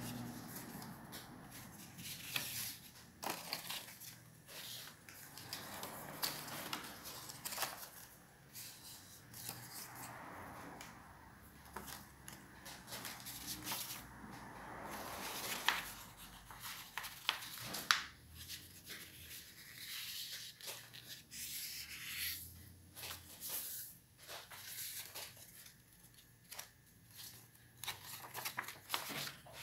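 A sheet of black paper rustling and crackling as hands handle, fold and crease it, with scattered short snaps; two sharper snaps stand out a little past the middle.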